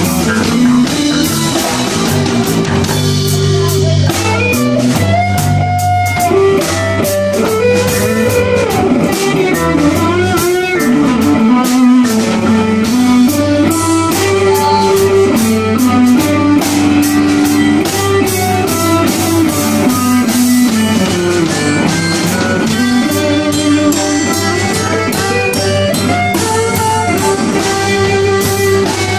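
Live band music: electric guitar, bass guitar and drum kit playing an instrumental passage, with a lead line that bends up and down in pitch over a steady beat.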